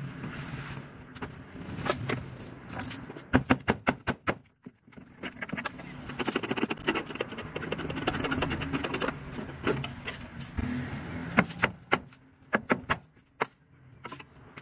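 Hammer and chisel striking rusted car-body sheet metal, chopping and prying a corroded rocker panel and wheel-arch section loose. There are clusters of sharp metallic blows, loudest a few seconds in and again near the end, with a longer spell of rapid clattering in between.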